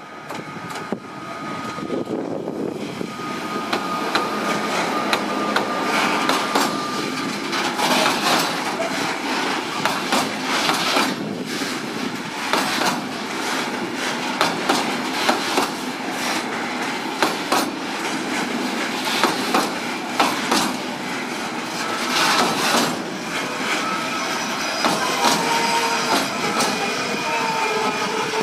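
Container freight train rolling past behind an ÖBB Taurus electric locomotive, 1116 070: the wagon wheels clatter over the rail joints in a dense run of knocks that grows louder over the first few seconds as the train comes close. Thin squealing tones are heard near the end.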